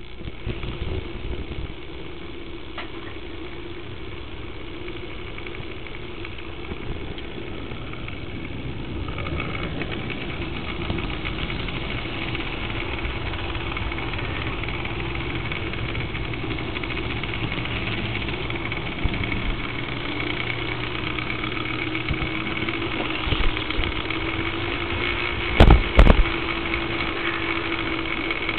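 HO-scale model locomotive running on its track, picked up by a small camera riding on the locomotive: a steady motor hum with a high whine over it that slowly grows louder. Two sharp knocks come a few seconds before the end.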